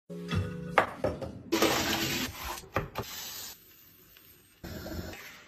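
Short snippets of kitchen cooking sounds cut together: metal pans and utensils knocking and scraping, with a few sharp knocks.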